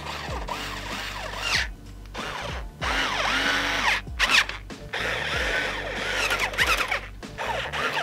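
Cordless electric screwdriver running in short bursts, stopping and starting several times as it drives screws through a metal case frame into a radiator. Background music plays throughout.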